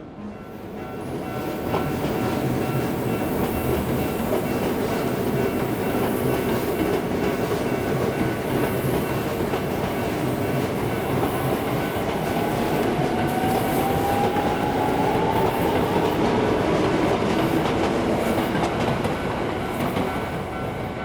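Hankyu electric train running past: a steady rumble and clatter of wheels on the rails, building over the first two seconds. A whine rises slowly in pitch in the middle.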